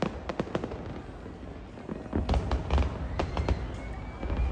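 Fireworks going off: a few sharp cracks near the start, then a quick cluster of crackling bangs over deep booms about two seconds in.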